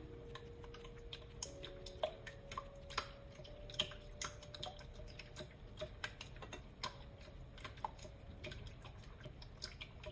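Wire whisk clicking irregularly against a glass mixing bowl while beating a runny egg and sour cream mixture.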